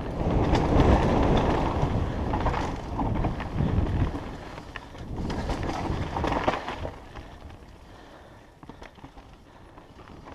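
Scott Gambler downhill mountain bike descending a dirt trail at speed, heard through a helmet-mounted action camera: wind rushing over the microphone and tyres on dirt and gravel, with frequent clicks and knocks from the bike. It grows quieter over the last few seconds.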